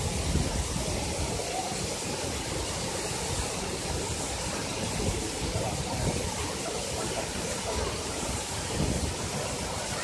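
Wide curtain waterfall pouring steadily into a pool: a constant rushing hiss of falling water, with an uneven low rumble underneath.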